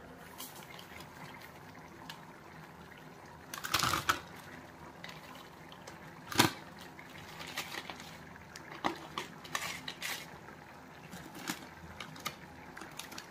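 Scattered crinkling rustles and clicks as crispy fried chicken pieces are handled and pushed into a foil-lined snack packet, with a short burst of crackling just under four seconds in and one sharp knock about six seconds in, the loudest sound.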